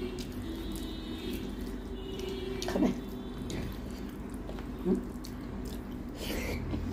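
Fingers mixing rice with mutton curry on a steel plate: soft wet squishing and small clicks over a steady low hum. Two brief voice-like sounds that fall in pitch stand out, about three and five seconds in.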